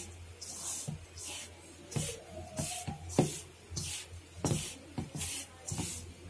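Dry flour, semolina and sugar being mixed by hand in a steel bowl: rhythmic rustling, scraping strokes about twice a second, with a few light knocks.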